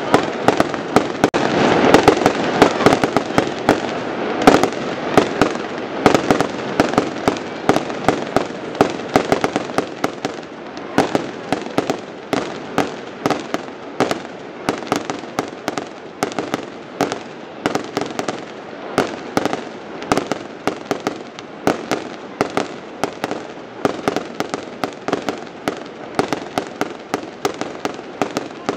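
Fireworks display: a continuous barrage of sharp bangs and crackling as rockets and fountains go off. It is densest and loudest in the first few seconds, then settles into a steady run of separate reports, several a second.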